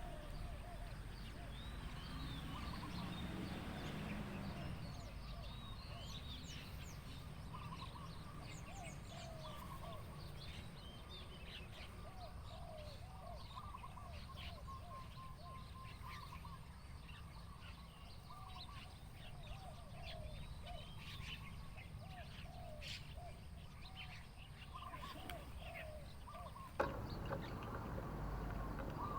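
Faint chirps and calls of several small wild birds in open countryside, over a low steady background rumble. A low hum rises and fades in the first few seconds, and the background grows a little louder near the end.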